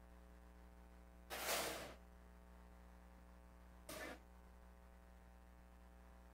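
Quiet room with a steady electrical mains hum, broken twice by short breathy bursts of noise, about a second in and again about four seconds in.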